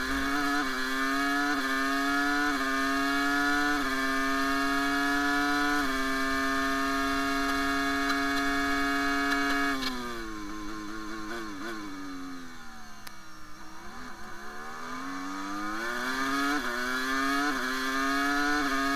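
Ferrari Formula One car's engine at full throttle, its pitch climbing and snapping down at each quick upshift, then holding a high steady note. About halfway through it falls through a run of downshifts under braking to a low point, then climbs again through a series of rapid upshifts.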